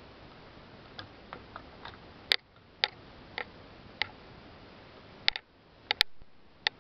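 About a dozen sharp, irregularly spaced clicks and ticks over a faint steady hiss, the loudest about two seconds and six seconds in.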